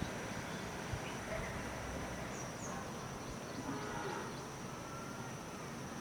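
Outdoor ambience: a steady high-pitched insect drone over a noisy background, with two faint short bird chirps about two and a half seconds in.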